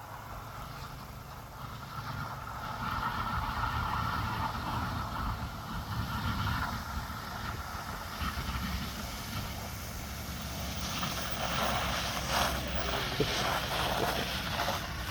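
Passing car tyres hissing through slush on a wet road, swelling twice, with a low rumble of wind on the microphone.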